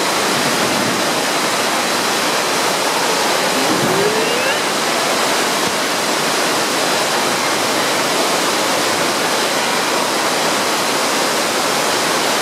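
Steady rushing-water din of an indoor waterpark, the water slides and water features making a loud, even wash of sound.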